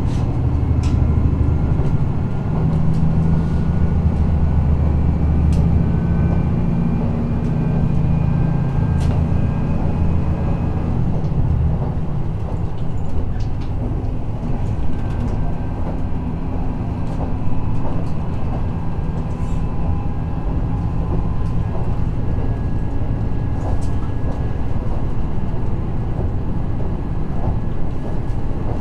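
Interior running sound of a KiHa 54 twin-engine diesel railcar under way: a steady low diesel drone with wheel and rail noise. The engine note is heavier for about the first ten seconds, then eases to a lighter, even drone, with occasional sharp clicks.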